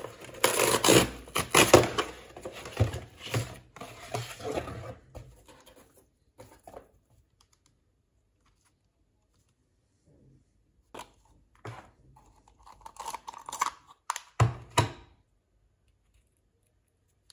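A kraft-paper mailer being torn open and rustled for about five seconds. Then quiet, broken by a few light clicks and small handling rustles and one sharp knock near the end.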